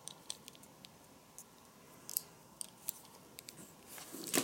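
Handling noise of a leather belt and its metal buckle: scattered small clicks and creaks as the strap and buckle prong are worked by hand, with a louder scrape of the leather near the end.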